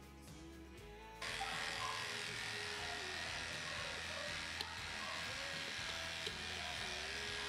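Electric dog clipper running, its blade buzzing steadily as it shaves through matted coat; the buzz comes in suddenly about a second in. Quiet background music plays underneath.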